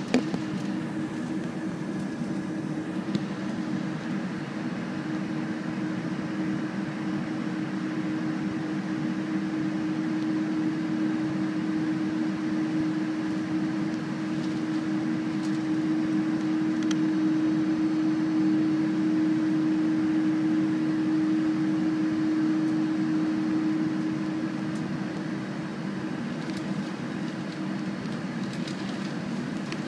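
Cabin noise inside a Boeing 747-400 taxiing: the engines' steady hum at low thrust mixed with the hiss of the cabin air, with a low drone that grows louder through the middle and eases off again. A light knock right at the start.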